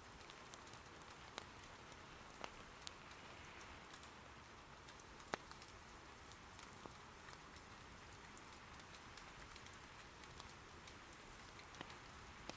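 Soft, steady rain, faint, with a few sharp pops from burning wood in an irori hearth; the loudest pop comes about five seconds in.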